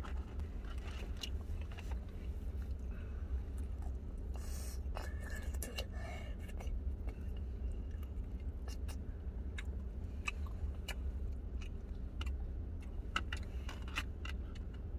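Takeout breakfast being eaten inside a car: scattered small clicks and scrapes of cutlery and food packaging, with chewing, over the cabin's steady low hum.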